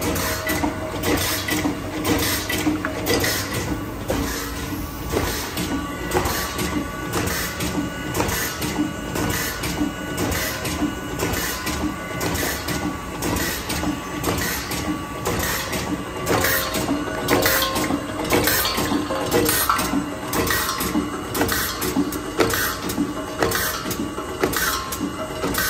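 Automatic rotary cosmetic tube filling and sealing machine running at production speed: a steady, rhythmic mechanical clatter of clicks, a few each second, over a constant hum.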